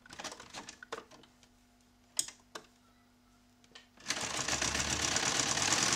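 Domestic electric sewing machine, with a few light clicks as the work is turned at the needle. About four seconds in, the machine starts up again and runs steadily, stitching.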